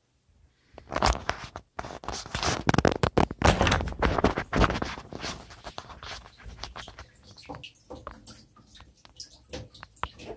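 Close rustling, scraping and crackling handling noise as the phone camera is moved about, starting about a second in, loudest in the middle and thinning to scattered clicks near the end.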